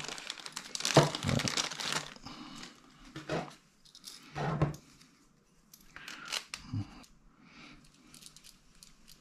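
A thin plastic bag crinkling and being torn open for about the first two seconds. Then come a few short separate rustles and knocks as the spinning reel's handle is taken out and fitted to the reel, with faint small ticks near the end.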